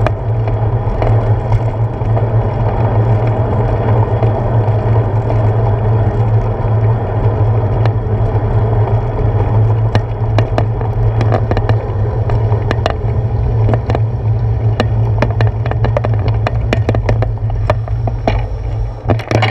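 Bicycle riding along pavement, heard through a handlebar-mounted GoPro: steady wind buffeting and road rumble with a strong low hum. From about halfway there are many sharp clicks and rattles, and the noise falls off near the end as the bike slows.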